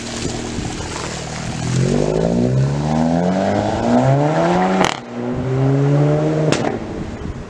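Mk7 Volkswagen Golf GTI's turbocharged four-cylinder, heard through a Borla S-Type exhaust, accelerating hard away. The engine note climbs through the gears, and the pitch drops with a sharp pop at each of two upshifts, the second near the end, before the sound fades into the distance.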